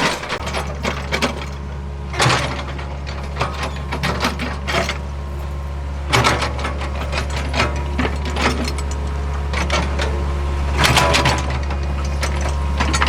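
Hitachi ZAXIS75UR compact excavator's diesel engine running steadily, with repeated metallic clanks and rattles from the working machine. There are louder bursts of clanking about two seconds in, about six seconds in and near the end.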